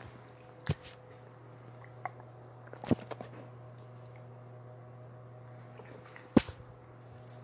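A small dog moving about on a couch, its paws landing with four sharp thumps spread through, the loudest about six seconds in, over a steady low hum.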